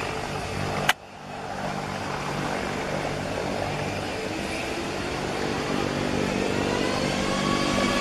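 Airbus A320-family airliner's turbofan engines running with a steady whine, their pitch starting to rise near the end as the engines spool up. A sharp click about a second in.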